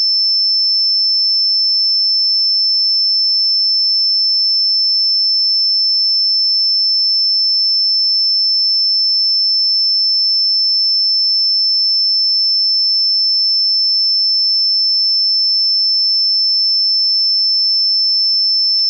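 A single steady, high-pitched pure electronic tone, held at one pitch and one loudness without change.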